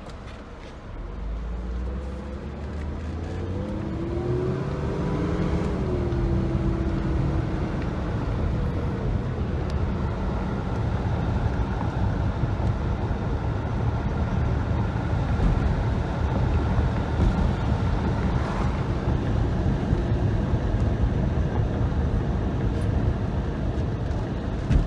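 Cabin sound of a 1992 Mercedes 300E's M103 straight-six pulling away under light throttle: the engine note rises in pitch and loudness, drops back about six seconds in as the automatic shifts up, then settles into steady engine and tyre noise at cruising speed. The engine is running on a new EHA valve with its mixture duty cycle freshly adjusted, and pulls well.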